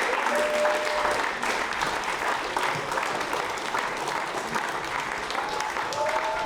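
Live audience applauding steadily, dense clapping, with a few long held calls from the crowd rising over it near the start and again towards the end.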